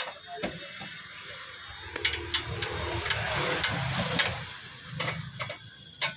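Scattered metal clicks and taps as bolts are fitted by hand through the lower mount of a front shock absorber (strut) on the steering knuckle, with a few seconds of rougher scraping noise in the middle.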